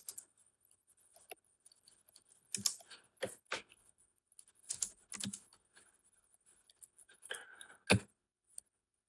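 Computer keyboard keystrokes and mouse clicks: scattered single taps, the loudest near the end.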